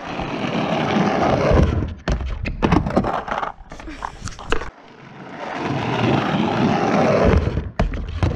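Skateboard wheels rolling on rough asphalt, building up as the board gathers speed toward a small street ramp. Then comes a run of sharp clacks and knocks as the board hits the ramp and its metal coping. A second roll-up follows, ending in another knock near the end.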